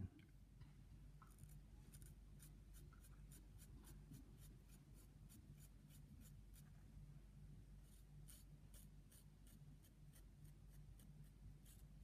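Faint, crisp scratchy ticks, about three a second, of a Lansky pocket knife's sharp blade shaving hair off a forearm. A low steady hum sits underneath.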